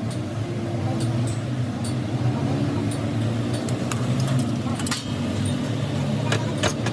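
Steady workshop machine hum with scattered light metallic clinks and taps, several coming close together near the end.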